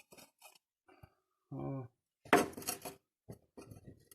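Scattered light metallic clinks and taps, with a short hum of a man's voice about a second and a half in and a louder clattering knock a little after two seconds.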